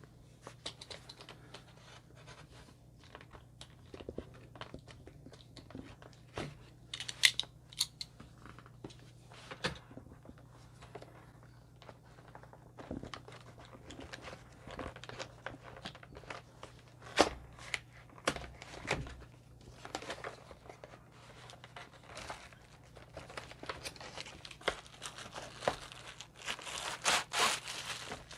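Cardboard box and paper packaging being opened by hand: tearing, crinkling and rustling, with scattered sharp clicks and taps, a few of them loud.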